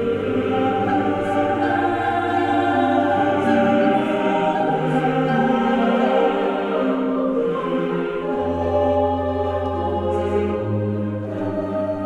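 Slow background music with choir voices over long held bass notes; the bass changes pitch twice.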